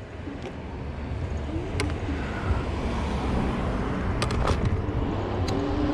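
Wind and road noise from riding a Zero 10x electric scooter, growing steadily louder as it picks up speed, with a few light clicks.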